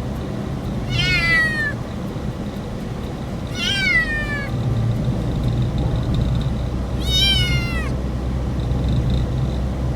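A kitten meowing three times, a few seconds apart; each meow is a short, high call that falls in pitch.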